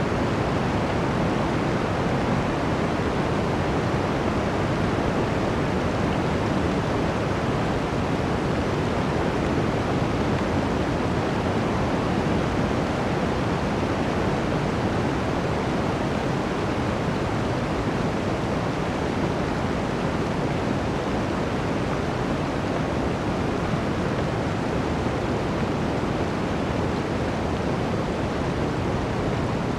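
Blizzard wind rushing through a forest: a dense, steady roar of wind with no distinct gusts or breaks.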